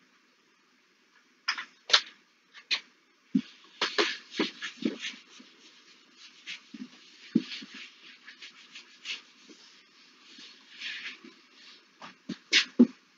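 Felt whiteboard eraser being wiped across a whiteboard in repeated rubbing strokes, broken by sharp clicks and knocks of the eraser and marker against the board and its ledge. Near the end, sheets of paper rustle.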